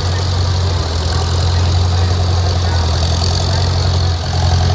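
Vintage tractor engine running steadily at low revs close by, a deep even hum that dips briefly about four seconds in.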